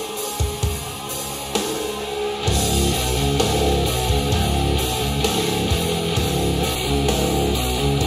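Rock music played back through a pair of Edifier R1700BT bookshelf speakers and picked up by microphones in the room. Sparse drum hits come first, and the full band with guitars, bass and drums comes in about two and a half seconds in.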